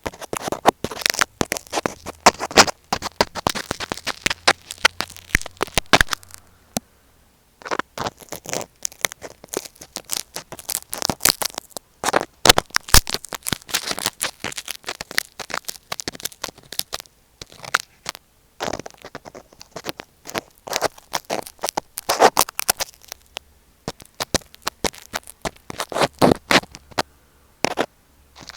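Close-up scratching, tapping and crackling right on a tape-covered Apple EarPods microphone as a tool pokes and rubs over the tape. It comes in dense flurries with a few short pauses.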